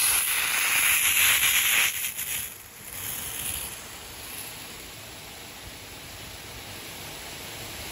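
High-pressure water jet hissing from the spray gun of an electric HTP sprayer with a three-piston pump. It is loud for about the first two seconds, then falls to a quieter, steady hiss.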